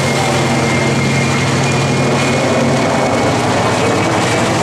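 PZL-Świdnik Mi-2 helicopter in display flight overhead: the steady, loud noise of its main rotor and twin turboshaft engines, with a thin high whine. A low hum in the sound drops away about three seconds in as the helicopter banks through a turn.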